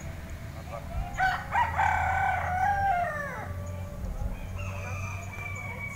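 A rooster crowing once, a call of about two and a half seconds that starts in short rising notes, holds, and falls away at the end.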